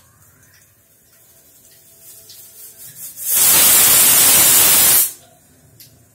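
Pressure cooker whistling on the gas stove: a brief sputter of steam builds up, then a loud hiss of steam blasts out for nearly two seconds and cuts off suddenly. It marks the cooker reaching full pressure, one of the whistles counted to time the cooking.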